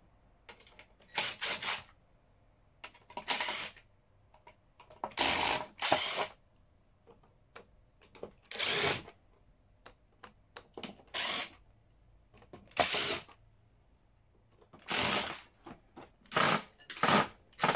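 Cordless drill-driver running in about ten short bursts, a second or two apart, as it backs out the bolts on the underside of an inverter's metal case.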